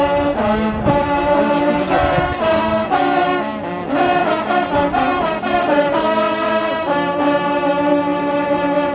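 Ensemble of French hunting horns (trompes de chasse) playing a fanfare together: a run of held and changing brass notes, settling into one long held note about seven seconds in.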